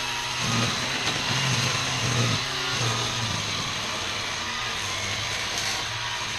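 ECHO 58-volt battery string trimmer running, its line cutting through tall weeds and grass, with a low hum that swells and fades over the first few seconds and then holds steady.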